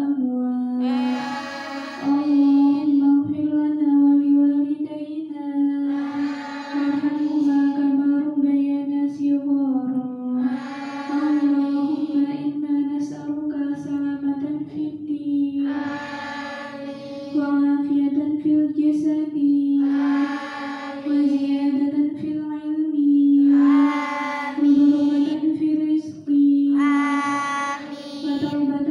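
A group of girls chanting a Muslim prayer (doa) together in unison, held on one steady note with phrase after phrase rising in pitch above it.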